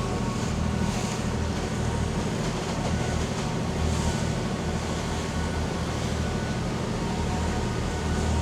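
Motor yacht's diesel engines running steadily under way, a low even drone, with a rushing noise of wind and water over it.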